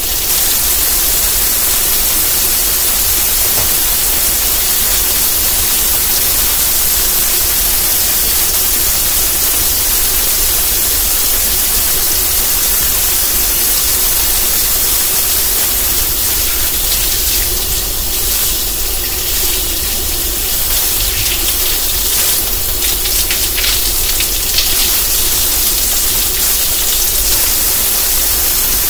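Kitchen faucet running steadily into a sink while dishes are washed, with a few light knocks and clinks partway through.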